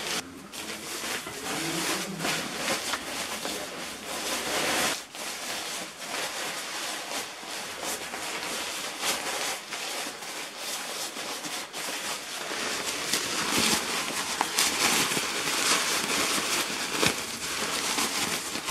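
Lightweight polyamide jacket with a foil-like lining rustling and crinkling as it is crumpled and stuffed into its own pocket: a steady crinkly rustle full of small crackles.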